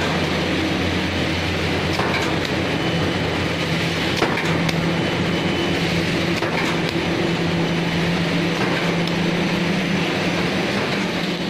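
Spindle rotary veneer peeling lathe running: a steady machine hum with a few sharp knocks, about two and four seconds in.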